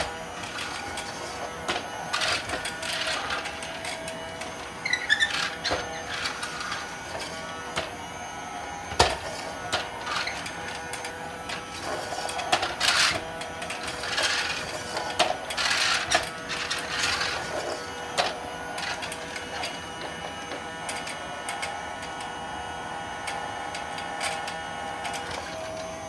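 Toy Dyson upright vacuum cleaner's small motor whirring steadily while it is pushed back and forth over a rug, with irregular louder swishes as it moves.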